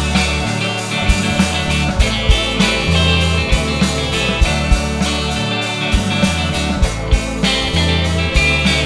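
Instrumental rock music with guitar, bass and a steady drum beat.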